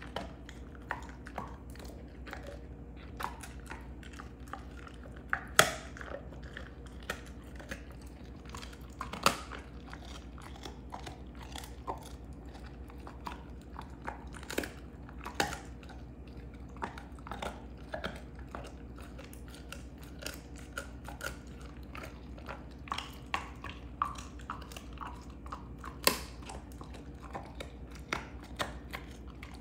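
Belgian Malinois gnawing on a beef rib bone: irregular crunches and cracks of teeth on bone, with a few much louder snaps scattered through.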